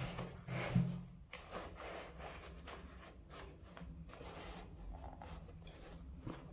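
Soft rubbing and rustling of hands handling packaging and sneakers during an unboxing, with a small knock near the start.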